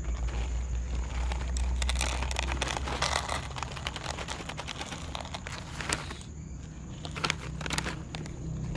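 Plastic cat food pouch crinkling as it is tipped and shaken to pour food into a plastic bowl, followed by a few sharp clicks.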